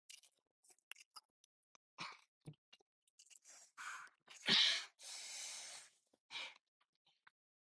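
A person's breathy mouth and nose sounds after eating very spicy noodles: short sniffs and breaths, a sharp burst like a cough or sneeze about four and a half seconds in, then a long breathy exhale.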